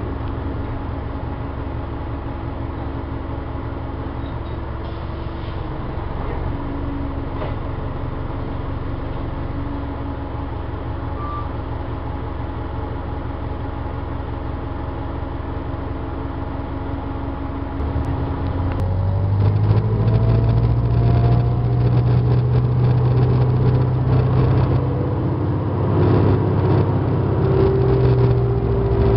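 Interior sound of a 1996 New Flyer D40LF city bus with a Detroit Diesel Series 50 engine and Voith D863.3 transmission, running steadily, then about two-thirds of the way in growing louder as the bus accelerates. A rising, higher-pitched whine comes in with the acceleration, along with some interior rattles.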